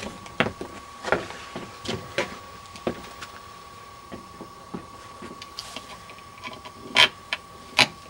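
Irregular clicks, taps and scrapes of a screwdriver working a screw at a door's metal deadbolt strike plate, with two sharper knocks near the end.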